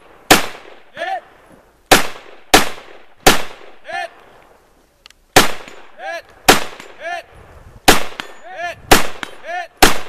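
Nine single shots from a semi-automatic AR-style rifle, fired at an uneven pace of about one a second. Most are followed about half a second later by a short pitched ring, the sound of a steel target being hit downrange.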